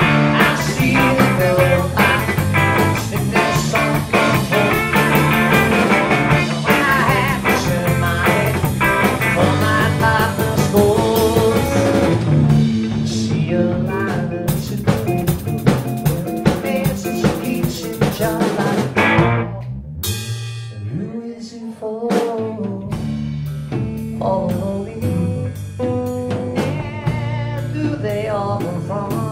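Live blues-rock band playing an instrumental passage on drum kit, electric bass and electric guitar. About two-thirds of the way through the drums drop out and the music falls quieter for a couple of seconds, then light drumming comes back in under the bass and guitar.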